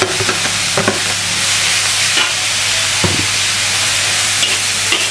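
Green beans, chillies and fermented soybean paste sizzling in hot oil in a wok with a steady hiss. A spatula stirring them scrapes and knocks against the pan a few times.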